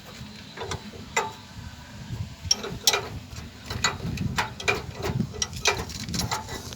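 Irregular metallic clicks of a ratchet wrench being worked on the engine's belt pulley nut, sparse at first and coming faster after about two and a half seconds.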